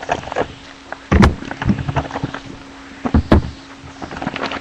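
Cardboard trading-card box and foil packs being handled on a table: two dull thumps, about one second and three seconds in, with light crinkling and clicking between them.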